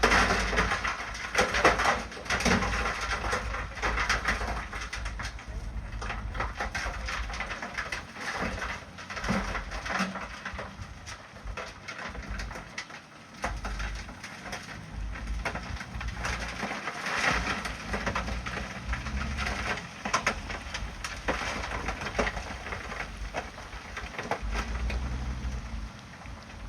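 Bulldozer at work: a low engine rumble that comes and goes, with irregular clatter and scraping of steel tracks and blade on rock.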